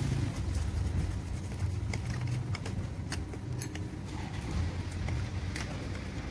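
Scattered light metallic clicks and taps of a screwdriver and starter-motor parts being handled during reassembly, over a steady low hum.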